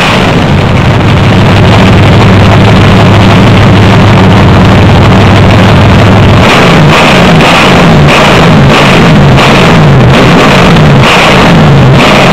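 Freshly rebuilt Chevy small-block V8 running in a vintage dirt modified, holding steady for about six seconds. It is then revved up and down repeatedly from the carburetor throttle.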